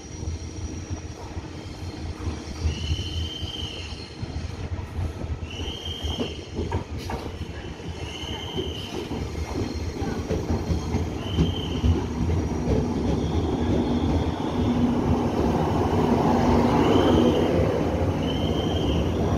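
Taiwan Railway EMU900-series electric commuter train pulling into a station platform at low speed. Its rumble grows louder as it draws alongside, with short high-pitched squeals repeating every two to three seconds and a steady low hum in the later part.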